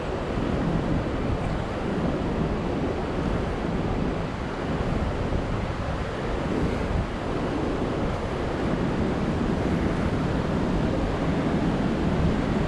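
Steady rush of a large waterfall's falling water, with wind rumbling on the microphone.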